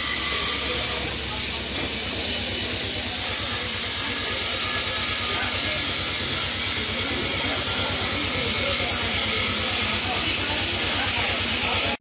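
Oxy-fuel gas cutting torch hissing steadily as it cuts through steel plate.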